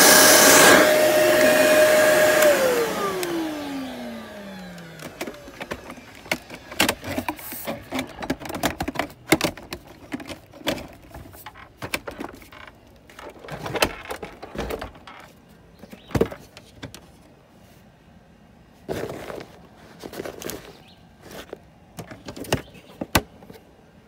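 Kenmore Intuition upright vacuum running with a steady whine, then switched off about two and a half seconds in: the motor's pitch falls and fades as it spins down over a couple of seconds. After that come scattered light knocks and clicks.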